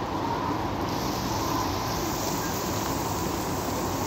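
Heavy rain falling on a wooden pool deck and the pool's water, a steady hiss.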